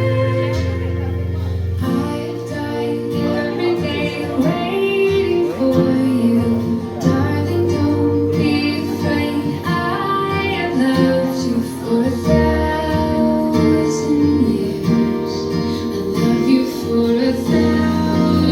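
Background music: a song with a woman singing over guitar and a steady bass.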